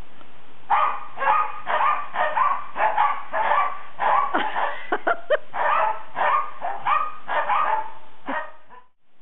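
Kerry Blue Terriers barking together in a fast, steady run of barks, about two to three a second, with a few sharper yips in the middle; the barking cuts off near the end.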